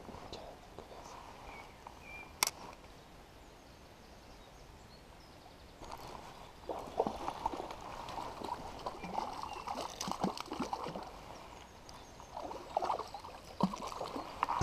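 Small river running, with a single sharp click about two seconds in, then irregular rustling and knocking handling noises from about six seconds in.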